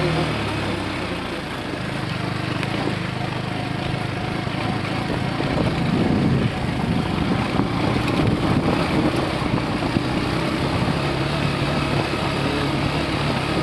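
KTM Duke 250 motorcycle's single-cylinder engine running steadily while the bike is ridden.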